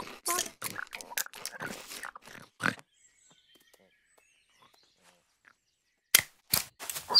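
Cartoon sound effects: a fast, irregular run of short noisy sounds for nearly three seconds, then near silence, then a few sharp clicks about six seconds in.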